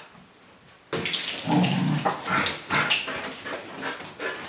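A dog's claws clattering and scrabbling on hardwood stairs and floor as it rushes down, with excited whining. The clatter starts suddenly about a second in and keeps on as a run of quick sharp clicks.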